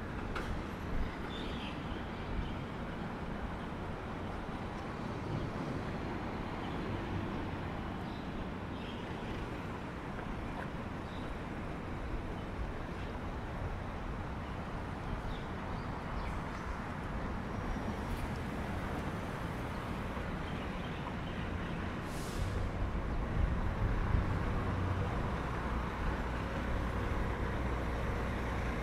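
Road traffic running steadily, with a low rumble that grows louder in the last third as a heavy vehicle comes near. A brief hiss sounds at about the point where the rumble starts to grow.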